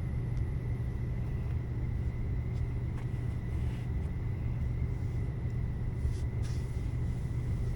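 Central heat-pump air-conditioning system running in heat mode, a steady low hum with a faint high whine over it.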